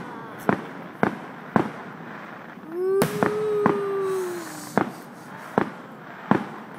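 Aerial fireworks shells bursting in a display, about eight sharp bangs spaced half a second to a second apart. Near the middle, a long drawn-out tone rises, holds and sags slightly.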